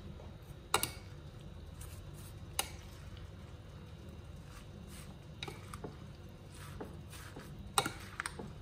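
Plastic salad servers tossing a chopped salad in a ceramic bowl: a soft wet rustle of vegetables, with a few sharp clicks of the servers against the bowl, the loudest about a second in and near the end.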